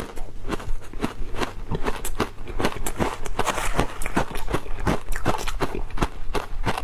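Ice being bitten and chewed: a rapid, irregular string of sharp crunching cracks, several a second.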